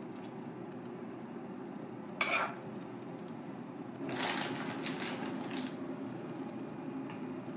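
A metal spoon scraping and clinking against a crab shell as it spreads a creamy filling: one short scrape about two seconds in, then a run of scrapes from about four to five and a half seconds. A steady low kitchen hum runs underneath.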